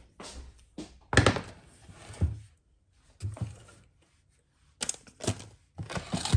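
Several irregular thuds and rustles of kitchen handling, with short quiet gaps between them. The loudest thud comes about a second in.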